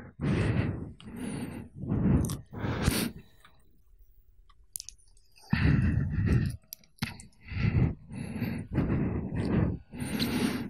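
A man's indistinct, murmured voice through a handheld microphone, in short bursts with a pause of about two seconds near the middle.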